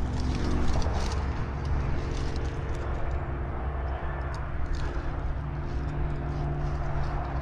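A steady low engine drone with a few faint clicks.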